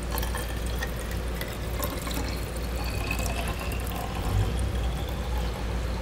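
A thin stream of water-based room spray solution pouring from a plastic measuring cup into a 4-ounce aluminum bottle, filling it to four ounces.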